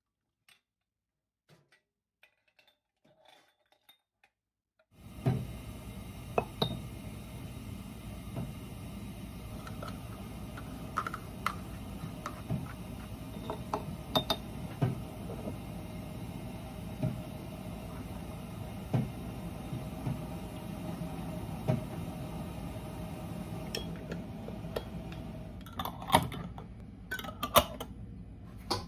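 After a few seconds of near silence, a metal spoon clinks against glass jars in sharp, scattered taps over a steady background hum. Near the end, a quicker run of clatters comes as screw lids are put on the glass jars.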